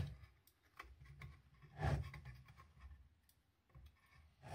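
Faint handling noise of a circuit board being pried out of its aluminium housing: small scattered clicks and scrapes, with one louder knock about two seconds in.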